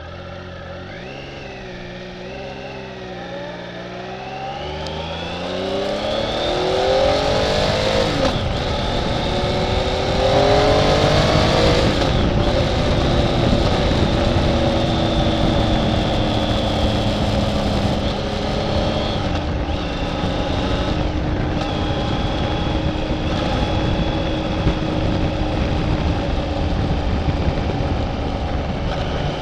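Motorcycle engine blipped a few times at idle, then accelerating with a rising pitch through one gear change, then running at a steady speed with wind rushing over the microphone. The steady note in the second half is the engine held at constant throttle by a throttle lock while the rider's hand is off the grip.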